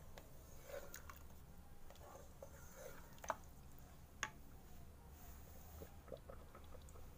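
Faint, soft squelching of a wooden spoon stirring thick taro curry in a pressure cooker, with two light clicks about a second apart near the middle.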